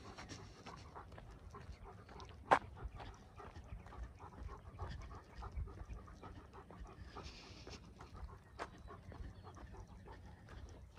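Footsteps on a dry dirt road, walking at an uneven pace, with a sharp click about two and a half seconds in.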